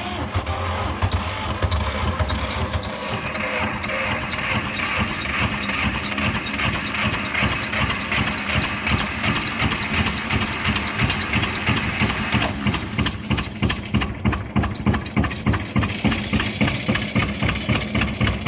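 Vintage Kramer K 15 tractor engine running at idle just after being started, with a steady, even beat.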